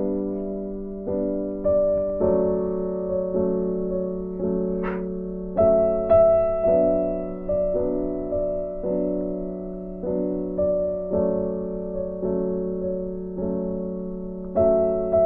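Background music: a gentle piano-like keyboard melody with notes struck at an even pulse, each fading away. A brief faint hiss about five seconds in.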